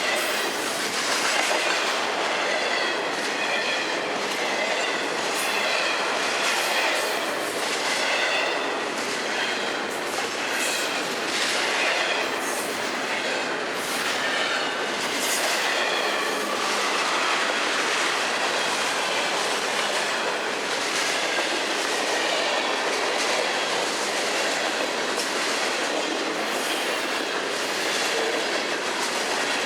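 Florida East Coast Railway freight cars rolling steadily past: a continuous rumble of steel wheels on rail, with repeated clicks over rail joints and a wavering high squeal from the wheels, most noticeable in the first half.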